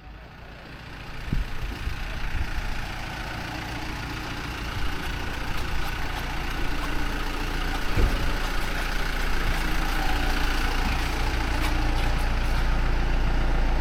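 A vehicle engine running steadily with a low rumble, growing gradually louder over the first few seconds.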